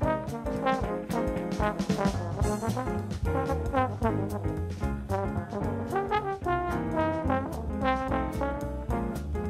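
Upbeat instrumental background music with a quick melody over a bass line and a steady beat.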